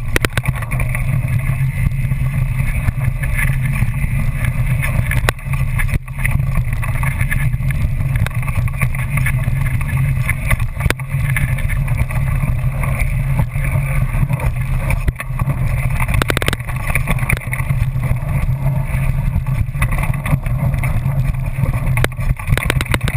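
Wind buffeting a bike-mounted action camera's microphone and knobby mountain-bike tyres rolling on a dirt trail, a steady loud rumble, with scattered sharp knocks and rattles as the bike hits bumps and ruts.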